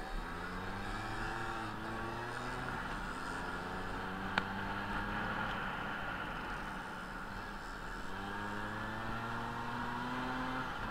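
Vespa scooter engine accelerating under load, its pitch climbing for the first few seconds, holding steady, then climbing again near the end. A single sharp click sounds about four seconds in.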